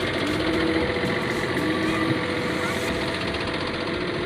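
Ashok Leyland 5525 AU truck's diesel engine idling steadily.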